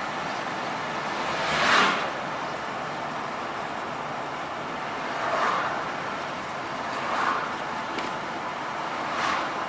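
Steady road noise from a vehicle driving on a highway, with other vehicles whooshing past four times; the first pass, about two seconds in, is the loudest.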